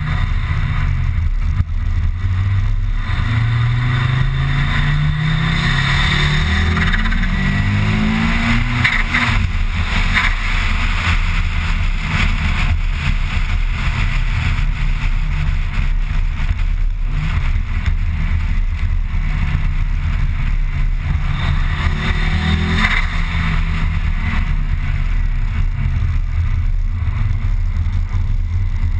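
Car engine heard from inside the cabin, rising in pitch through several revving pulls in the first third and again briefly about two-thirds of the way through, over a steady low drone of road and tyre noise.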